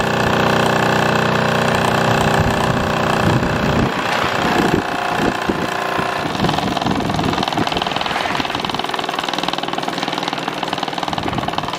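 Mamod SP4 toy live-steam engine running, a fast, even mechanical beat; about four seconds in its sound changes and the individual strokes come through more distinctly.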